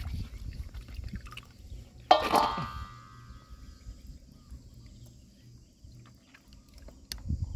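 Hands working through shallow water in a rocky tide pool, with light sloshing and a low rumble. About two seconds in, a sharp clink rings briefly, a hard object such as a shell striking something hard.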